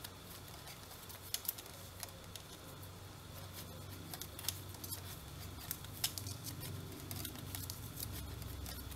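Knitting needles clicking and tapping lightly at irregular moments as stitches are worked, over a low steady hum.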